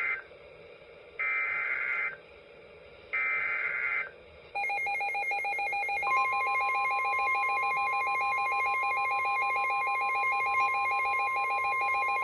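NOAA Weather Radio warning alert. First the tail of one burst and then two one-second bursts of screechy SAME header data. Then, from about four and a half seconds in, a rapid warbling electronic alert beep starts, joined a second and a half later by the steady 1050 Hz warning alarm tone, announcing a severe thunderstorm warning.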